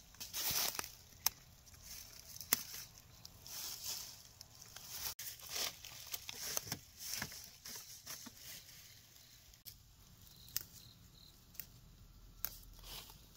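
Leaves and plant stems rustling and tearing by hand, in irregular swishes and sharp snaps that thin out in the second half.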